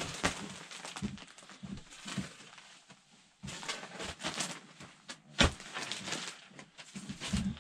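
Plastic wrapping on a compressed bale of fiberglass batt insulation being slit with a knife and pulled open: irregular crinkling and rustling, with one louder sharp crack a little past the middle.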